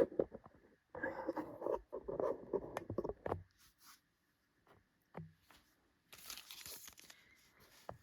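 Foil Pokémon booster pack wrappers crinkling as they are handled, in short bursts of rustling, with a soft knock about five seconds in.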